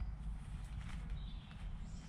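Low wind rumble on the microphone, with faint rustles of the Hilleberg Akto's nylon flysheet door being rolled up by hand.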